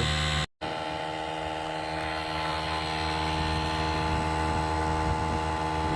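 DeWalt DCC020IB 20V cordless air compressor running steadily while inflating a tire, a constant-pitch droning hum. It drops out for a moment about half a second in, then carries on unchanged.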